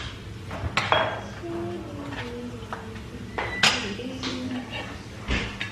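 A few sharp clinks of plates and utensils, the loudest about two-thirds of the way through, with a voice talking low in the background.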